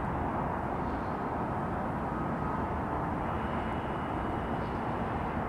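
Distant CSX diesel locomotives running as they haul a loaded ballast train, a steady low rumble. A faint thin high tone comes in about three seconds in.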